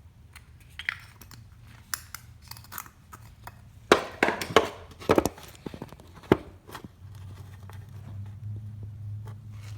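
Clicks and knocks of a spark tester and trimmer parts being handled, with a cluster of sharp knocks about four to six seconds in. A low steady hum comes in about seven seconds in.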